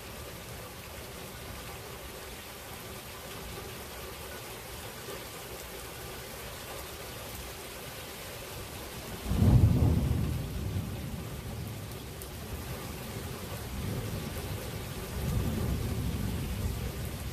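Steady rain falling, then about halfway through a sudden loud clap of thunder that rumbles on for a few seconds, with more rolling thunder near the end.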